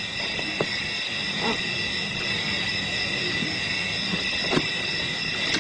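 Nighttime insect chorus: a steady, high-pitched trilling with several pitches held together. A few faint short sounds break through it.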